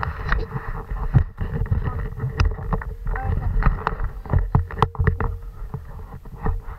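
Handling noise from fingers rubbing, tapping and knocking on the action camera and its mount: irregular thumps and scrapes, with a steady hum underneath.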